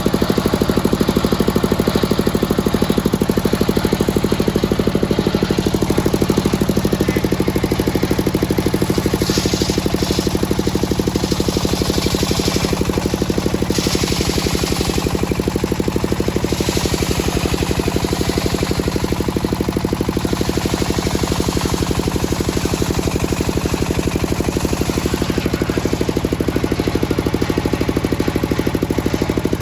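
The engine driving a circular sawmill runs steadily throughout, with a fast pulsing rhythm. Stretches of high hiss come and go between about nine and nineteen seconds in.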